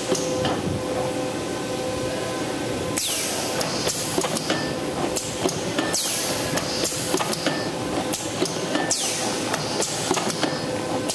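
Automatic box packing machine running, packing small boxes into cartons: rapid, irregular clacking of its mechanism over a steady hum, with a short high hiss about every three seconds.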